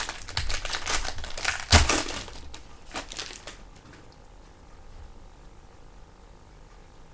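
Foil trading-card pack wrapper crinkling and tearing as it is opened, with one louder crackle about two seconds in. After about three and a half seconds the crinkling stops and only faint handling is left.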